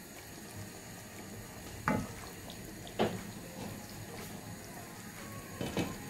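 A pot of fish and potato curry simmering while being stirred with a wooden spoon, a wet liquid sound throughout. Sharp knocks of the spoon and lid against the pot come about two seconds in, at three seconds, and as a quick double knock near the end.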